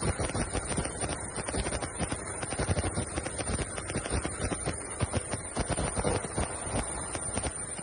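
Helicopter rotor and engine running, heard close-up from the open cabin door during a winch hoist, with the fast, steady beat of the rotor blades over a rush of noise.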